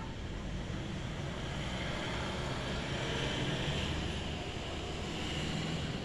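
A broad outdoor rushing noise with a low rumble, swelling to its loudest around the middle and easing again.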